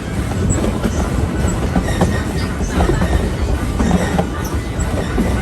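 Narrow-gauge passenger coach rolling behind a steam locomotive: a steady low rumble of wheels on the rails, with scattered clacks and knocks and faint brief squeals.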